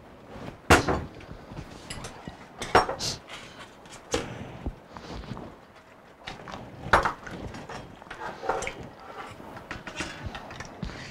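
Kitchen handling sounds: glass dessert dishes clinking as they are set down on the counter and a spoon knocking against a stainless saucepan, about half a dozen separate sharp knocks.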